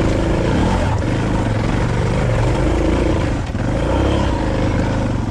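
Suzuki V-Strom 650's V-twin engine pulling steadily under load as the motorcycle climbs a steep, loose dirt hill, with a brief dip in power about three and a half seconds in.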